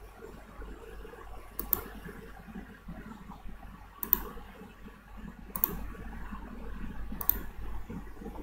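Four sharp single clicks, spaced about one and a half to two and a half seconds apart, over a faint low background hum.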